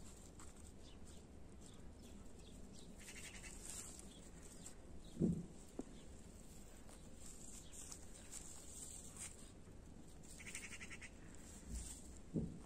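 Two short animal calls, one about five seconds in and one near the end, each brief and fairly low-pitched, over faint background hiss.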